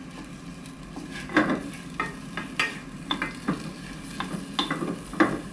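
Wooden spatula stirring sliced onions in a stainless steel saucepan: irregular scrapes and knocks against the pot over a faint sizzle as the onions sweat in butter.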